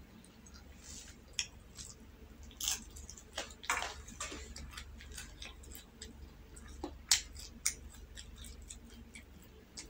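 Close-miked chewing of soft rolled egg omelette: irregular wet mouth clicks and smacks, a few of them sharp.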